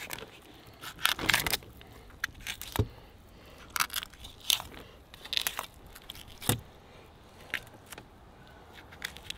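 Fillet knife scraping and clicking along an albacore tuna's backbone as the loin is cut free, in short, irregular strokes.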